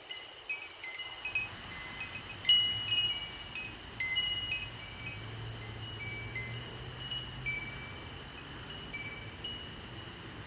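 Wind chimes ringing irregularly in the wind, several different notes struck and ringing on briefly.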